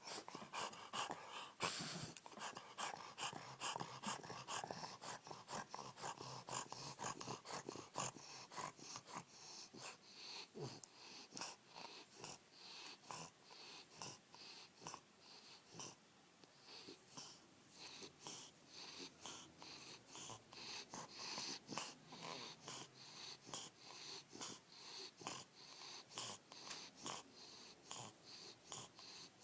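Bulldog snoring, a quick, regular run of noisy breaths, about two a second.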